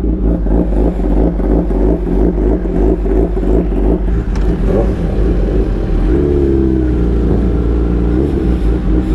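Kawasaki ZX-10RR inline-four running extremely loud through an open exhaust with its dB-killer baffle removed, the engine note choppy and uneven at low revs. About six seconds in the revs rise and hold at a higher steady pitch.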